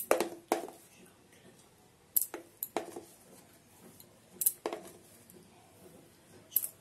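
A spoon clinking against a stainless steel bowl about seven times, in short sharp knocks a second or two apart, as arrowroot powder is mixed into marinated chicken pieces.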